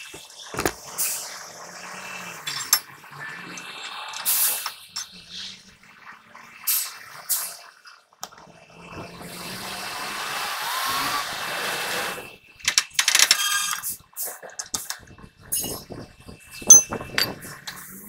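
Metal clinks and knocks as a truck's axle shaft is slid back into the wheel hub, with a longer scraping stretch about halfway through as the shaft goes home, then a quick run of rattling ticks.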